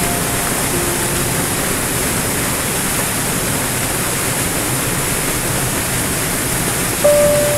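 Small waterfall cascading over rocks into a plunge of white water: a steady, even rush. A single piano note comes in near the end.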